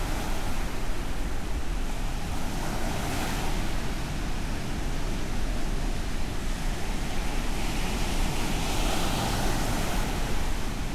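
Ocean surf: waves breaking and washing in, swelling about three seconds in and again near the end, over a steady low rumble of wind on the microphone.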